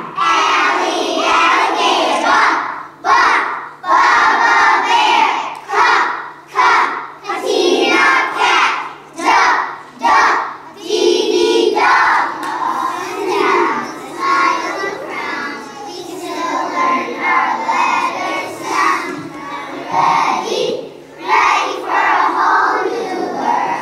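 A kindergarten class singing a song together in unison, loud and close to shouting, in short choppy phrases with brief gaps between them.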